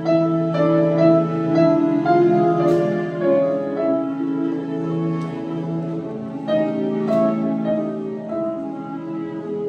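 A grand piano and a string orchestra playing together: piano notes struck over held notes from the strings.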